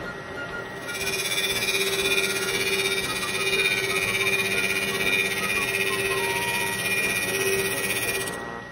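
Vertical milling machine's end mill side-cutting a wooden block: a steady rasping cut over the spindle's running tone, fading out near the end.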